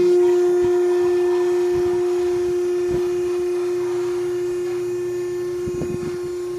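Vertical baler's electric motor and hydraulic pump running with a steady, even whine, with a few faint knocks.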